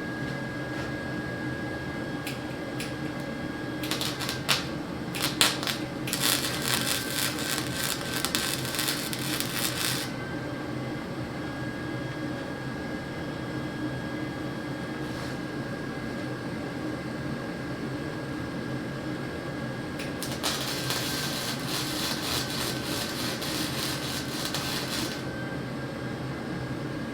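Two spells of electric welding crackle, one about six seconds long and one about five, as steel bracing is tack welded, over the steady hum of a space heater.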